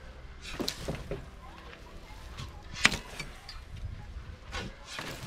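Steel spade scraping and scooping into dry manure and sandy soil, a few separate strokes with the loudest near three seconds in.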